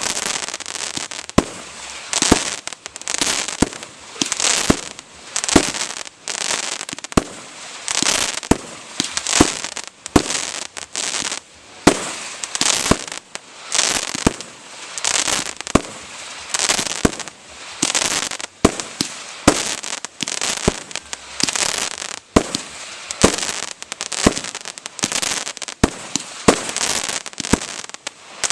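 Fireworks going off in quick succession: a sharp bang about every second, each followed by a crackling hiss.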